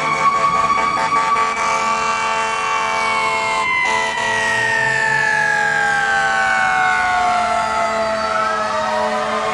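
Fire engine siren wailing in one long, slow sweep: the pitch rises a little over the first two seconds, then glides steadily down through the rest, and begins to climb again at the very end.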